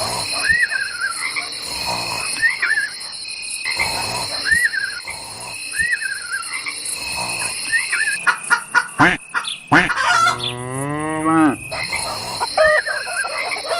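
Farm-animal soundscape: a steady high insect chirring with short falling calls repeating about every two seconds, and a cow mooing once, long and loud, about ten seconds in.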